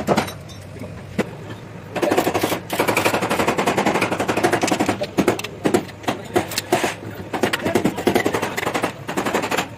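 Rapid rattling run of sharp mechanical impacts, many strokes a second, starting about two seconds in and going on almost to the end. It comes from work on the underside of a Yuchai diesel engine block around the connecting-rod caps and bolts.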